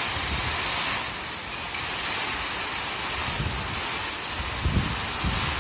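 Hurricane rain and wind: a steady, heavy hiss of rain, with a few low rumbling gusts near the end.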